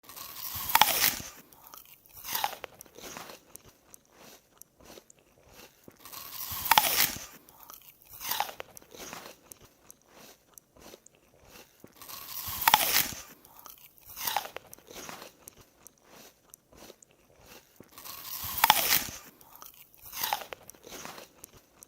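A person biting into a crisp apple with a loud crunch, four times about six seconds apart. Each bite is followed by a second, smaller crunch and then quieter crunching as the piece is chewed.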